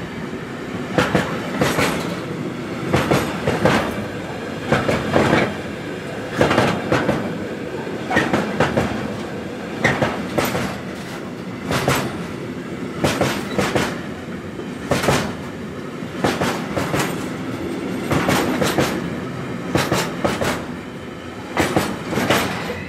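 A long train rolling past, its wheels clacking over rail joints in pairs of strikes that repeat about every one and a half to two seconds over a steady rumble.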